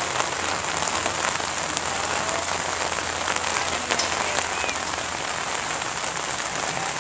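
Heavy rain pouring steadily onto wet pavement and grass, with a few sharper drop ticks standing out.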